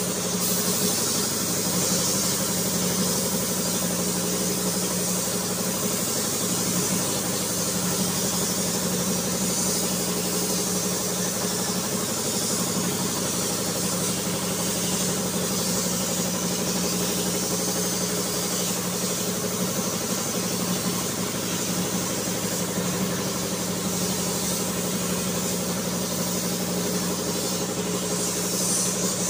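A steady machine hum with a constant high hiss, unchanging throughout.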